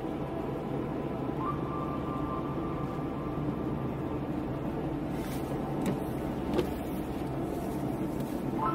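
Car heard from inside the cabin while driving on a wet road: steady engine and tyre noise. The engine note steps up about a second and a half in and again near the end. A few sharp ticks come a little past halfway.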